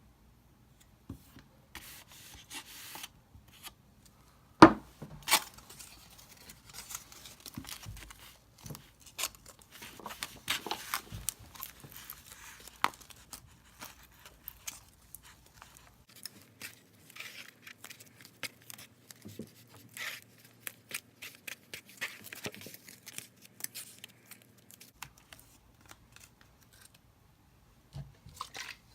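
Slime-making supplies being handled: irregular clicks, scrapes and crinkling, with one sharp click about five seconds in.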